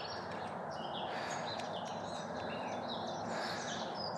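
Several small birds chirping and singing in short calls over a steady background hiss of open-air ambience.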